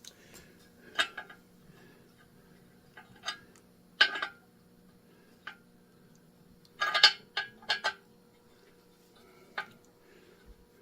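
Scattered metal clinks and clicks of hand tools being handled during engine-block thread repair, loudest about four and seven seconds in, over a faint steady hum.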